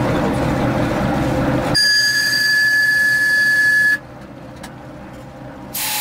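TEM2 diesel locomotive running with a rumbling cab noise, then one steady high-pitched whistle blast lasting about two seconds. Whistle and running noise both cut off abruptly about four seconds in, leaving a much quieter background.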